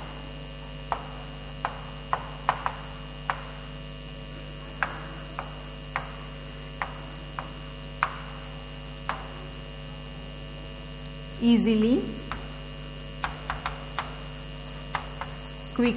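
Chalk ticking and scratching on a blackboard as words are written, a short sharp tick every second or so, over a steady electrical hum.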